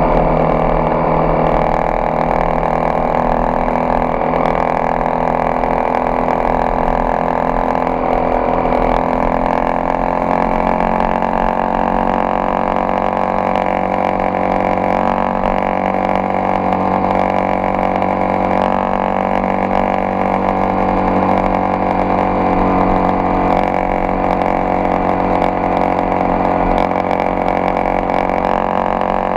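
Engine of a Honda XRE 300 motorcycle, a single-cylinder four-stroke, running steadily. Its pitch rises a little about ten seconds in, then holds.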